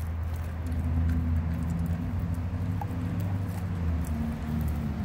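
Long-coated German Shepherd chewing and gnawing raw meat on the bone, with faint scattered clicks of chewing. A low steady engine-like hum runs underneath and is the loudest part.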